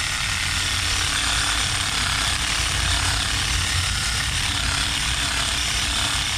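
Cordless drill spinning a wire wheel brush against a rusty steel chassis rail, scouring off surface rust in a steady, continuous grind.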